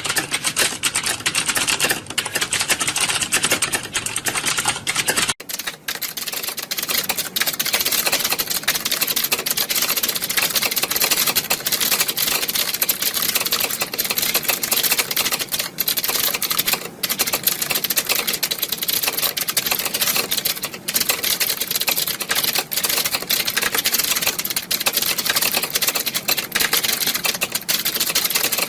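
Many computer keyboards being typed on at once: a dense, unbroken clatter of overlapping keystrokes. About five seconds in the sound changes abruptly, losing its low rumble, and the clatter carries on brighter.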